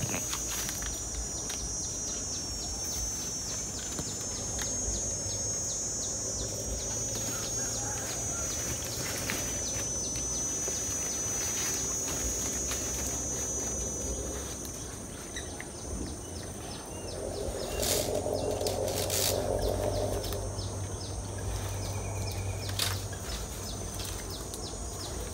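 Insects keep up a steady, high-pitched pulsing drone through the whole stretch, with a few faint bird chirps. About seventeen seconds in, a louder, lower murmur rises for some three seconds, with a few sharp clicks.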